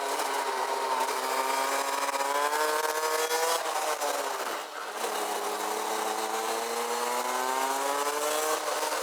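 Rotax Max DD2's 125 cc two-stroke single-cylinder kart engine at racing speed, heard onboard: the revs sag and climb, drop sharply off the throttle about four and a half seconds in, then rise in one long steady climb. A rush of wind noise on the microphone runs beneath it.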